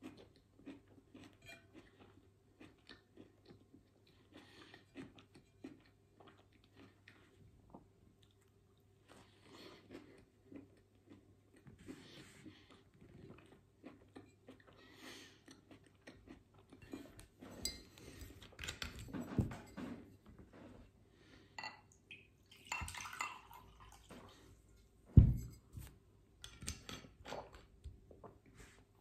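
Close-up chewing of a soft sandwich of white toast bread, processed cheese slices and cooked red peppers, with small wet mouth clicks. It is faint at first and louder and busier in the second half, with one loud knock about three quarters of the way through.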